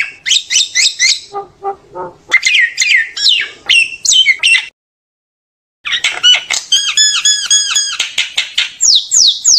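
Common myna calling: a rapid jumble of harsh squawks, clicks and whistled notes. The calls break off in a sudden complete silence of about a second midway, then come back with a fast run of repeated ringing notes, about six a second, and two falling whistles near the end.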